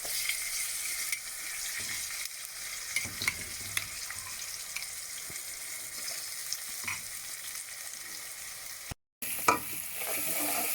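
Tempering of mustard seeds, urad dal and curry leaves sizzling in hot oil in a pan, with the mashed ingredients just added and being stirred, with scattered small scrapes and taps of the spoon against the pan. The sound drops out for a moment about nine seconds in and comes back a little louder.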